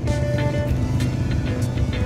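Background music with a steady beat and held notes, over a low steady rumble.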